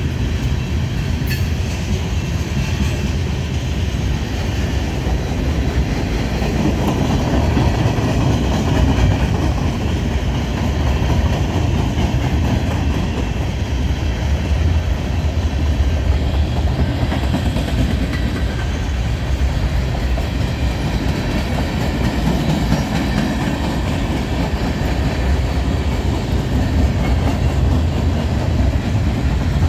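Manifest freight train rolling past, a steady loud rumble of wheels on the rails.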